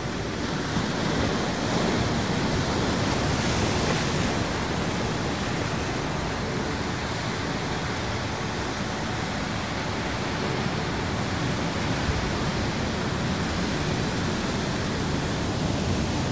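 Heavy ocean surf breaking and washing up the beach, a steady rush of noise that swells louder and brighter in the first few seconds.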